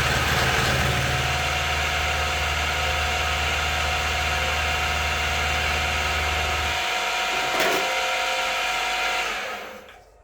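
Grizzly G0519 milling machine running through a shallow milling pass. About seven seconds in the low hum drops away, a single click follows, and then the machine winds down to a stop near the end.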